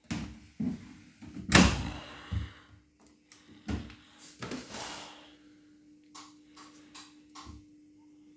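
A Bosch front-loading washing machine being handled: a series of clunks and knocks, the loudest a door-like slam about a second and a half in, then a few lighter clicks near the end.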